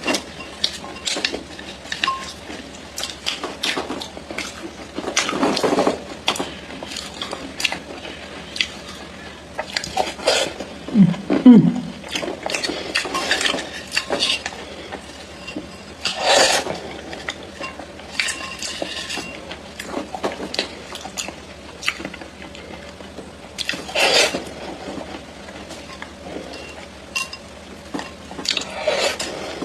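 Edible clay being bitten and chewed: sharp cracks, clicks and crunches at uneven intervals, with a short low sound about eleven seconds in.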